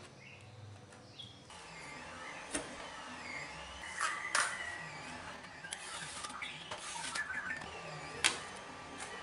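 Thin plywood sheets and a steel ruler handled on a tiled floor, with a handful of sharp clacks and knocks spread through, over a steady background noise.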